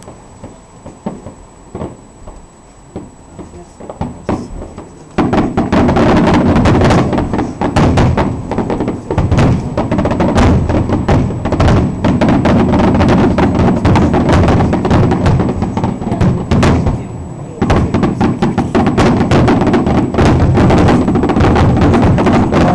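Fireworks display with its accompanying music: a few scattered pops, then about five seconds in a dense barrage of bangs and crackle starts, with a short lull near seventeen seconds before it picks up again.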